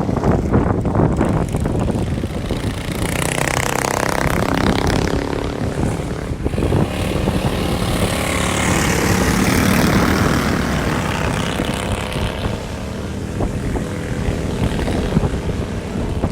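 Racing ride-on lawn mowers' engines running hard around the track, several passing close by with their pitch rising and falling as they go past.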